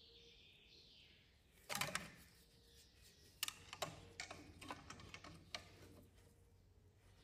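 Faint metal-on-metal clicks and taps of hand tools and parts being worked on a turbocharger: a short rattling cluster about two seconds in, then a string of irregular single clicks.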